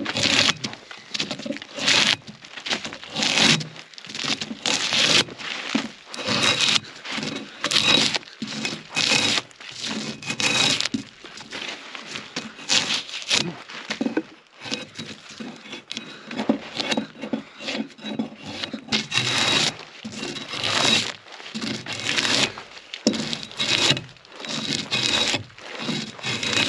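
Drawknife peeling bark off a large log by hand: repeated scraping strokes of the blade along the wood, about one a second.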